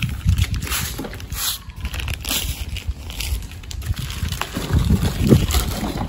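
Rustling and knocking as rubber car window weather strips and their plastic wrapping are handled, in short irregular strokes, over a low rumble of handling and wind on the phone's microphone.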